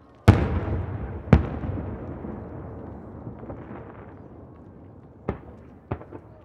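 Aerial firework shells bursting over the bay: a loud bang just after the start and a second about a second later, their echo rolling on and dying away over about four seconds. Two smaller bangs follow near the end.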